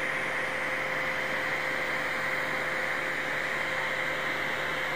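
3D-printed phone cooler fan, spun by a small 5–6 V DC motor salvaged from a DVD drive, running steadily: an even rush of air with a steady faint tone under it. The sound is almost the same as a brushless motor's.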